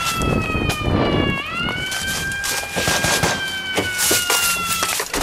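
A siren wailing: its pitch slides slowly down, swoops back up about a second and a half in, then slides down again before cutting off suddenly near the end. Short knocks and thumps from the moving camera sound under it.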